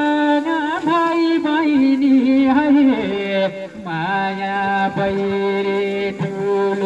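A singer holding long, drawn-out notes in a slow melody, stepping down to a lower sustained note about three seconds in.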